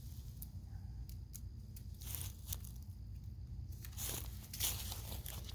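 Light handling noises of small parts and tools: scattered clicks and a couple of short scraping rustles, over a steady low hum.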